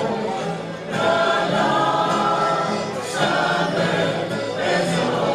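A mixed choir of women and men singing together, held notes with short breaks between phrases about a second and about three seconds in, accompanied by accordion and guitar.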